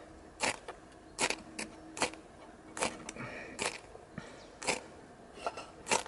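A small ferrocerium fire steel scraped hard with a metal striker, about nine short rasping strokes at an uneven pace. The rod is throwing a strong shower of sparks onto the tinder.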